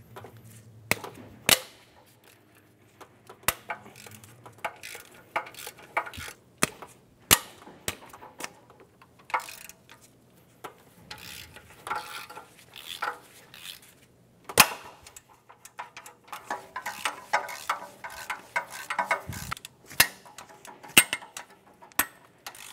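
Hand ratchet and 14 mm socket working steel exhaust manifold nuts loose: scattered sharp metallic clicks and clinks of tool on metal, with a run of quicker ratchet clicking about three-quarters of the way through.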